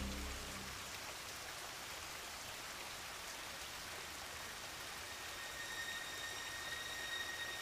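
Steady rushing water, a stream or waterfall running through the forest. A thin, high steady tone comes in about two seconds before the end.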